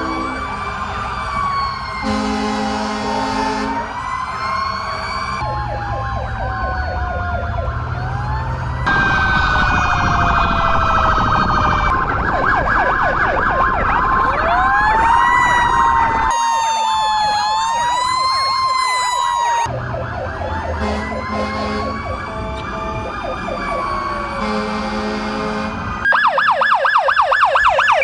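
Several emergency-vehicle sirens sounding at once from police cruisers and fire trucks: wails rising and falling, overlapping one another, with a fast, louder yelp near the end. The mix changes abruptly every few seconds.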